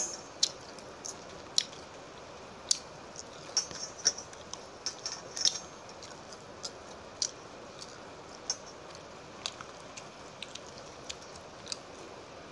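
Close-up mouth sounds of someone eating crispy fried fish: sharp, irregular crunches and smacks, thick in the first half and sparser after.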